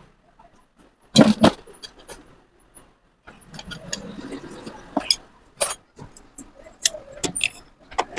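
Irregular metallic clicks and clinks, like hand tools and small metal parts being handled: two loud knocks about a second in, then scattered lighter clicks.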